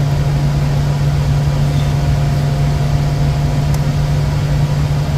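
Steady cockpit noise in a Bombardier Challenger 350 jet in flight: a constant low hum under an even wash of air and engine noise.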